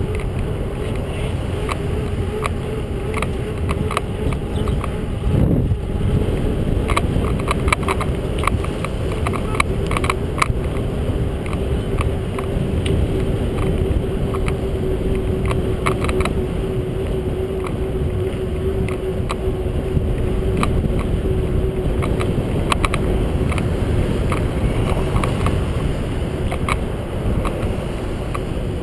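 Bicycle ride on an asphalt street heard from a camera mounted on the bike: steady wind and road rumble, a steady hum, and scattered light clicks and rattles as the bike goes over bumps.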